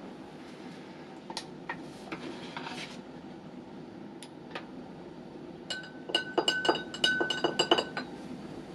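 A conductivity probe clinking against a glass beaker of water, about a dozen quick ringing taps over two seconds as it is lowered in. Before that, a few light clicks from the meter being handled.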